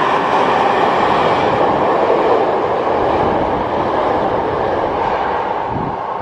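Kyoto Tango Railway KTR8000 diesel railcars running through a station at speed without stopping: a loud, steady rush of the passing train that eases off as the last car clears near the end.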